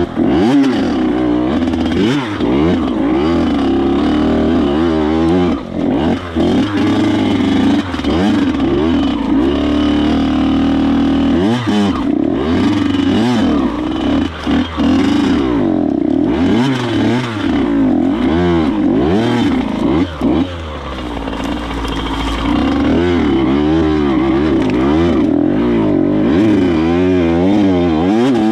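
Dirt bike engine being ridden, its revs rising and falling every second or so, with a brief easing-off about twenty seconds in.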